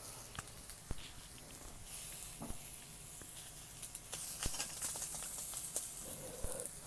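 Cooking over a wood fire: a steady sizzling hiss with scattered crackles and sharp pops, denser in the second half.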